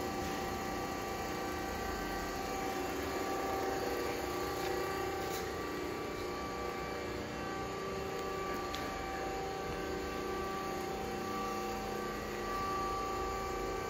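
Amada HA-16S horizontal band saw running: a steady machine hum with several steady tones through it.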